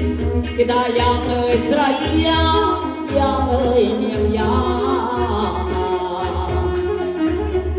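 Kantrum, the Khmer-Surin folk music: a singer on a microphone carries a wavering melody over the band's steady, regular beat.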